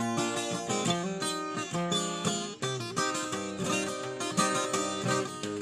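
Background music: an acoustic guitar playing a steady run of plucked notes.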